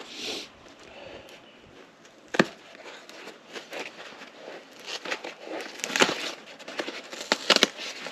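A cardboard box being handled and opened. There is a sharp knock about two and a half seconds in, then a run of tapping, scraping and crinkling with several sharp clicks near the end.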